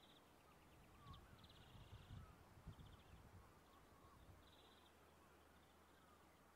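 Near silence of an open coast: faint high trilling bird calls, each a short run of quick even pulses, repeat every second or so, with a few soft lower chirps. Low wind rumble on the microphone swells between about one and four seconds in.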